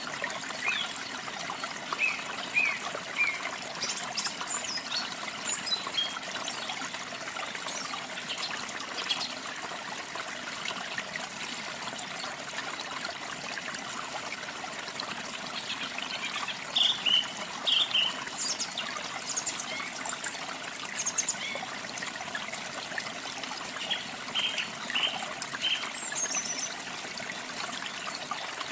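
Water trickling and pouring steadily, with small songbirds giving short high chirps in scattered clusters over it.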